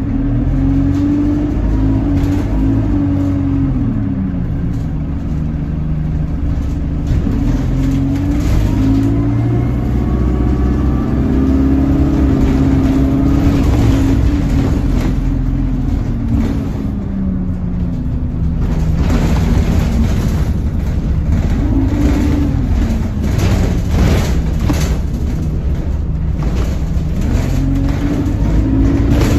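Alexander Dennis Enviro200 single-decker bus heard from inside the passenger saloon while driving, its engine note rising and falling several times as it pulls away, changes gear and slows. A series of short knocks and rattles comes in the second half.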